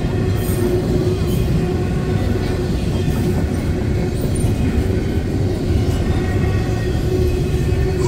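Double-stack intermodal freight train's loaded container well cars rolling past close by, a steady loud rumble of wheels on rail.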